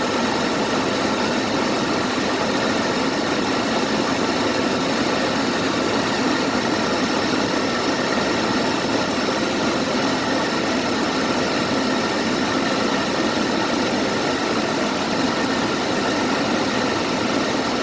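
Vehicle engine and road noise, heard steadily while driving.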